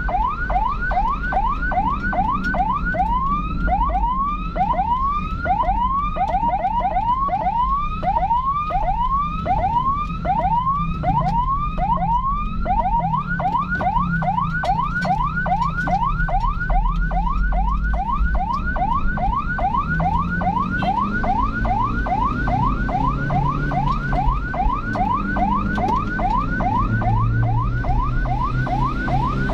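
Electronic emergency siren in a yelp pattern of quick rising sweeps, about three a second. For several seconds after the start it slows to longer sweeps, then it speeds up again. Under it runs a steady low rumble.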